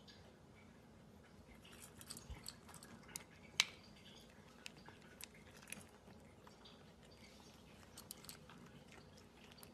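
Faint crunching of dry pet kibble being chewed, in scattered irregular clicks, the sharpest a little past three and a half seconds in.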